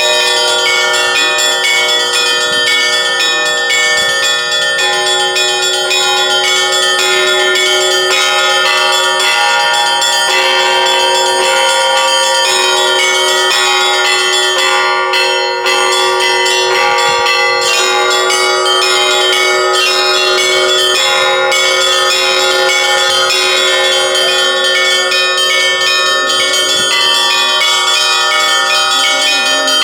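Russian Orthodox church bells rung by hand (zvon): fast rhythmic strikes on the small high bells over the steady ringing of larger bells. The high bells briefly drop out about halfway through.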